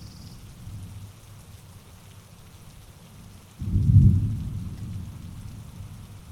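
Rainforest rain falling steadily under a low rumble of thunder. About three and a half seconds in, a louder peal of thunder breaks in suddenly and fades over the next two seconds.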